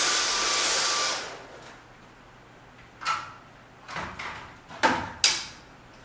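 A vacuum cleaner motor runs with a steady whine, then is switched off about a second in and spins down. A few short hard knocks and clacks follow as the vacuum is handled on its stand.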